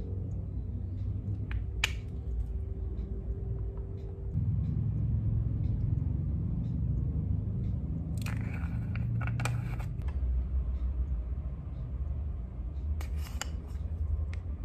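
Handling of skincare bottles and jars over a steady low room hum: a sharp click about two seconds in, then clusters of small crisp tapping and rustling noises twice later on.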